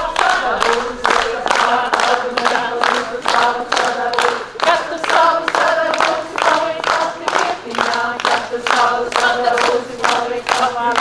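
Group of Latvian folk singers singing a traditional song in held, ringing notes, over steady rhythmic hand clapping at about three claps a second.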